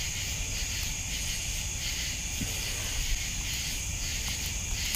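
Steady high-pitched chorus of night insects, with a faint knock about two and a half seconds in.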